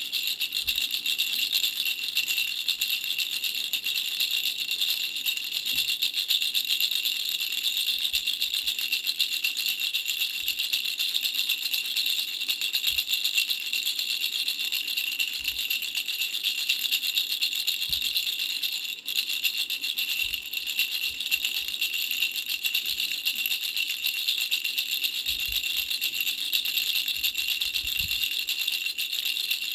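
Baby's three-flower bell rattle shaken continuously, its small bells jingling in a fast, steady rattle, with a brief break about 19 seconds in.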